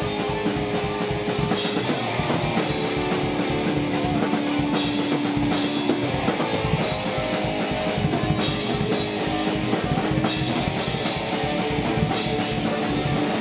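Rock music with drum kit and guitar, at a steady level throughout.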